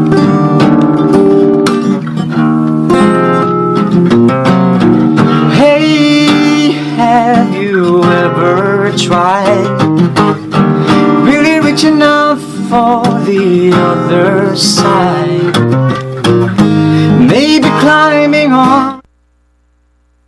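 A cover song: a man plays fingerpicked chords on an acoustic guitar, and his singing voice joins in about six seconds in. The music cuts off suddenly about a second before the end.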